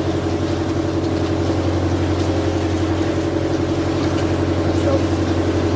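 Boat engine running steadily at an even pitch: a constant low drone.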